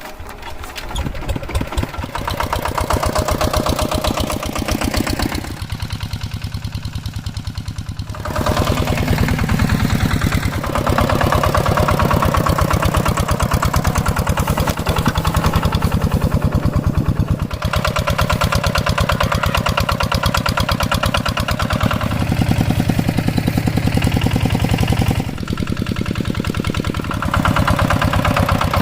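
Hand tractor engine running with an even pulsing beat. It gets louder over the first few seconds and eases off briefly about six seconds in and again near the end before picking back up.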